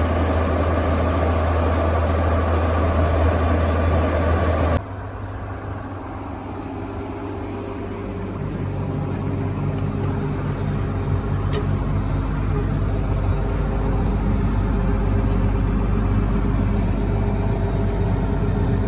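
Case IH 2188 combine's diesel engine running steadily. About five seconds in, the sound drops abruptly to a quieter, duller running note, which then slowly grows louder.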